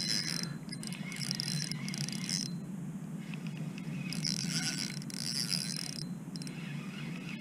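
A spinning reel being cranked, its gears giving a high whir in about four spells with short pauses between, as a hooked fish is wound in.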